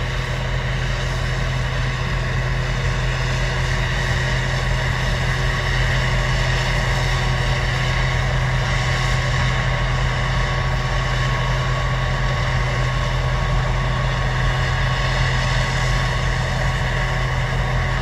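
Combine harvester running steadily as it harvests corn: an even, unchanging machine hum with a few steady tones and no change in speed.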